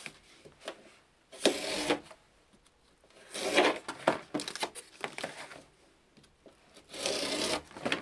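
Stainless steel blade of a Coast DX340 folding knife slicing through corrugated cardboard in three long, dry scraping strokes with short pauses between them.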